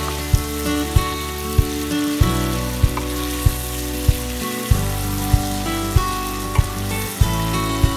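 Pork pieces sizzling and frying in a hot wok while a wooden spatula stirs them. Background music with a steady beat, about one and a half beats a second, plays underneath.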